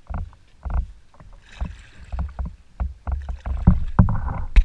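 Canoe paddling: paddle strokes and water knocking against the canoe's hull in uneven thumps about every half second, with one sharper, louder knock near the end.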